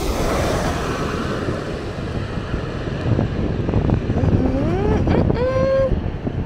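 Jet airliner's engine noise fading away just after it passes low overhead with its landing gear down, leaving a low rumble and wind buffeting the microphone. Near the end, a voice calls out with a rising, then held tone.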